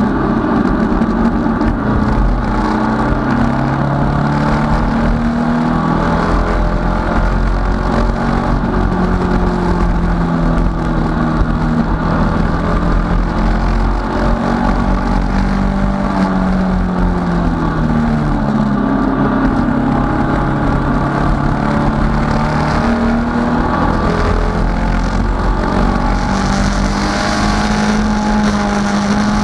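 Datsun 510 race car's four-cylinder engine running hard under racing load, heard from inside the stripped cabin. Its pitch rises and dips with throttle and speed, with a clear dip and climb just past the middle.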